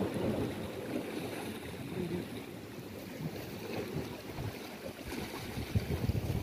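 Wind buffeting the microphone in uneven gusts over the wash of the sea against the rocks.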